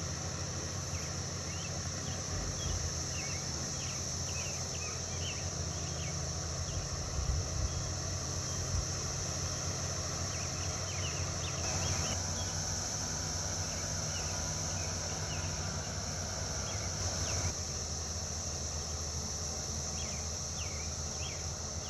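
Rural field ambience: a steady high insect drone with scattered short bird chirps over the low, steady hum of a distant engine.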